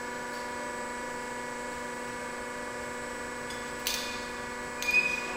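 Steady electrical hum of powered-up machinery, with a short click about four seconds in and a brief clatter near the end.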